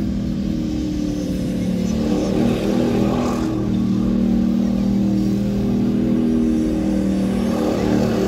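Pickup truck engine revving hard and held at high revs as the truck spins donuts on loose dirt, the pitch rising and dipping a little. A hiss of spinning tyres and thrown dirt swells a few seconds in.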